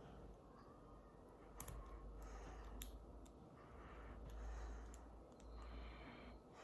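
Faint handling of small plastic toy pieces, with two sharp clicks about a second apart and soft rustling between them.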